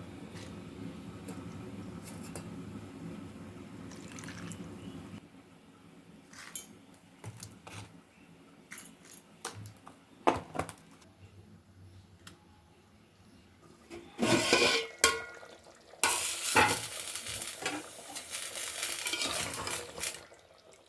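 Kitchen cooking sounds: a steady low hum for about the first five seconds, then pots, pans and utensils clinking and knocking, with two loud hissing rushes near the end.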